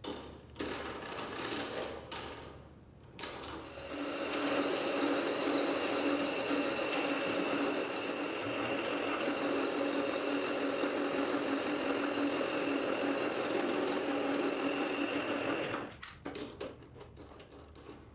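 Metal lathe running while its cutting tool turns down the end of a rusty threaded steel bar held in a three-jaw chuck: a steady running sound with a constant whine. It starts after a few seconds of handling knocks and cuts off sharply near the end, followed by some clatter.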